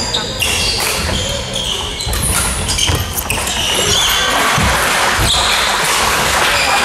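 Badminton rally on a wooden hall floor: racket strikes on the shuttlecock, court shoes squeaking as the players move, and footfalls thudding, twice near the middle, all ringing in a large hall.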